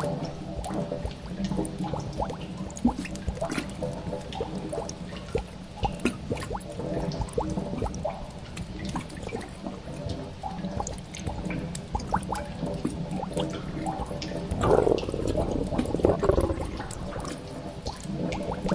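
Spooky cave ambience: water dripping at irregular intervals over a low, steady drone, with a louder noisy swell lasting about two seconds near the end.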